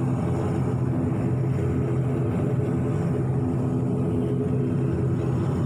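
Airliner engines droning steadily, heard from inside the cabin: an even hum with several steady pitched tones and no change in pitch.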